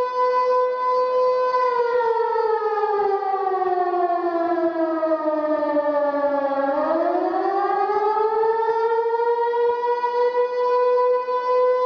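Siren wailing: a steady tone that, about two seconds in, slowly slides down in pitch to its lowest point about seven seconds in, then climbs quickly back up and holds steady again.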